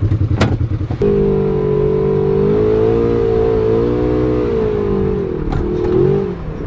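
Polaris RZR side-by-side's engine pulling the machine along under throttle. About a second in, the low pulsing gives way to a steady engine note that wavers slightly, then dips and rises again near the end.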